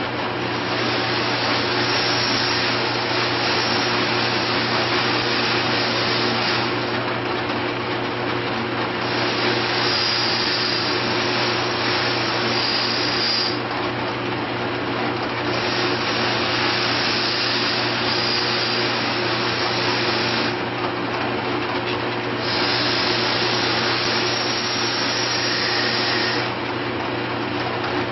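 Drill press spinning a sanding mop, a steady motor hum under the rushing hiss of the abrasive flaps sanding the fuzz off the back of a scroll-sawn wooden piece. The high hiss dips for a second or two about four times.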